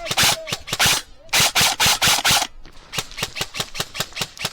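Airsoft guns firing: sharp clicking shots in quick strings, with dense loud bursts in the first two and a half seconds, the longest starting a little over a second in, then single shots at about five or six a second.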